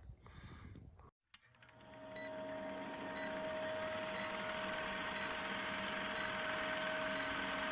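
After a sudden cut about a second in, a steady electronic hum with one constant tone and a short high beep about once a second.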